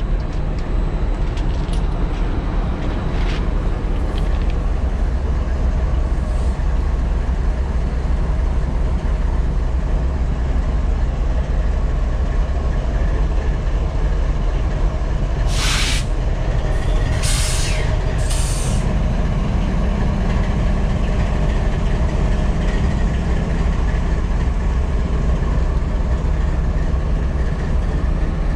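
A GE ES44DC diesel-electric locomotive's GEVO-12 V12 diesel engine running with a steady low drone. Three short hisses come a little past the middle, and the drone sounds slightly fuller after them.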